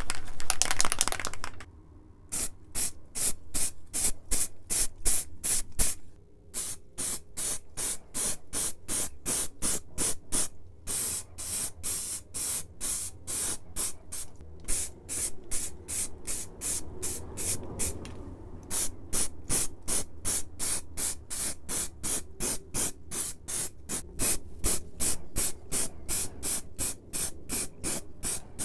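Aerosol spray paint can sprayed in short, rapid bursts, about three or four a second, with a few brief pauses. The first second or so is one louder continuous stretch of sound.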